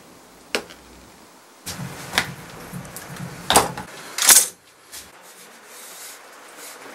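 Woodworking clamps and a curved plywood drawer part being handled on a cloth-covered bench: rubbing and scraping, with a few sharp clicks and knocks, the loudest about four seconds in.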